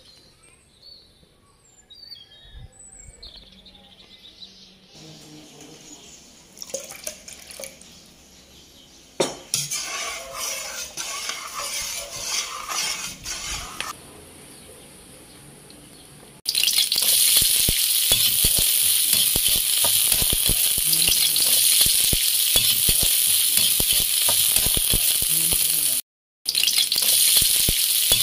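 Sliced red onions and garlic frying in hot oil in a wok: a loud, steady sizzle starts about two-thirds of the way in, with the scrape and tick of stirring, and breaks off once briefly near the end. Before that, quieter clinks and clatter, with birds chirping at the start.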